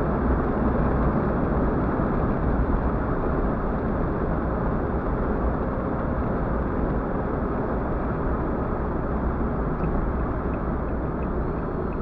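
Car driving at a steady speed, heard from inside the cabin: a constant low road-and-engine rumble with tyre hiss.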